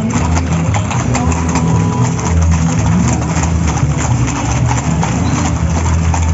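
Many horses' hooves clip-clopping on pavement in quick, overlapping clicks, over a steady low rumble.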